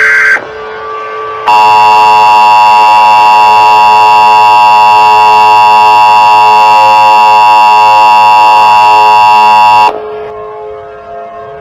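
EAS alert tones. First comes the end of a harsh digital data burst from the SAME header. About a second later the two-tone EAS attention signal blares: a loud, steady, unchanging tone that lasts about eight seconds and cuts off suddenly, leaving a much quieter background.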